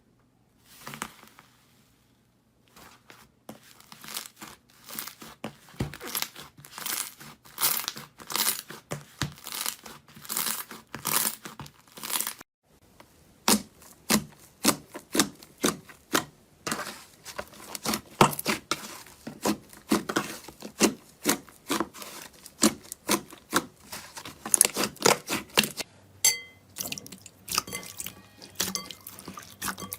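Slime being squeezed and stretched by hand: crackling, popping and tearing sounds in repeated squeezes about once a second, changing abruptly twice as one slime gives way to another.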